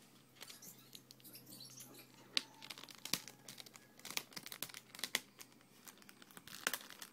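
Packaging crinkling and rustling as it is handled, with a few irregular sharp clicks, the loudest about two and a half seconds in and again near the end.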